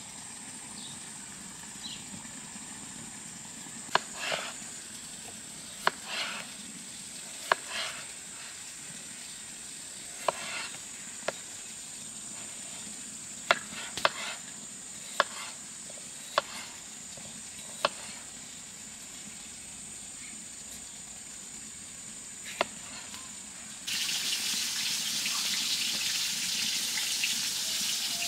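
Meat frying with a faint steady sizzle, and sharp clicks of a utensil on the pan about every second or two, several followed by a brief flare of hissing. About 24 s in, running water starts and is much louder.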